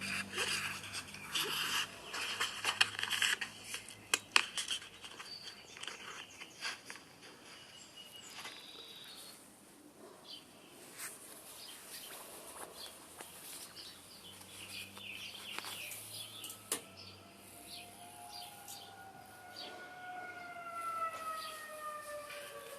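Outdoor tornado warning siren sounding in the second half, several tones at once, its pitch sliding slowly downward over the last few seconds. Earlier there are sharp clicks and chirps, likely birds.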